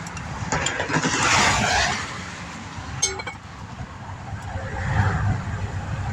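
Interstate traffic passing close by, a tyre hiss that swells and fades and then a lower rumble building near the end. About three seconds in, a single sharp metallic clink.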